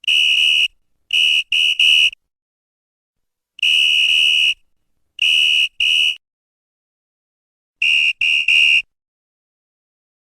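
Referee's whistle blown in a series of blasts at one steady high pitch: a long blast, three quick short ones, another long blast, two short ones, then three quick short ones near the end.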